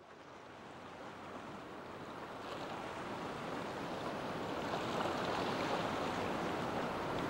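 Sea surf washing against a concrete tetrapod breakwater, with wind, as a steady rush of noise that fades in from silence and grows louder over the first few seconds.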